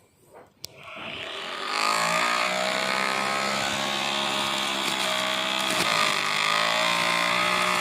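Homemade grass trimmer's 775 DC motor switched on with a click, spinning up over about a second to a steady whine as it cuts grass.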